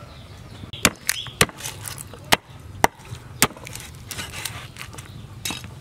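Meat cleaver chopping roast pork on a round wooden chopping block: about seven sharp chops at uneven intervals, most of them in the first half, with one more near the end.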